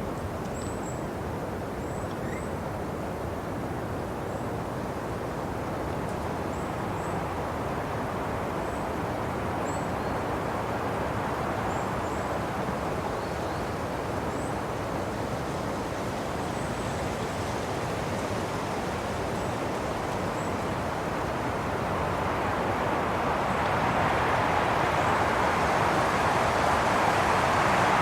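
Wind blowing as a steady rush that swells louder over the last few seconds. Faint short high chirps sound now and then in the first half.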